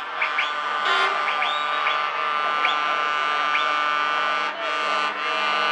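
Scania truck's air horns blowing a long, steady chord of several tones, broken briefly twice near the end, with a few short rising chirps over it.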